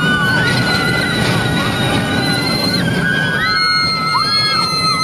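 Several roller coaster riders screaming in long, overlapping, wavering high screams over the steady rumble and wind rush of the ride.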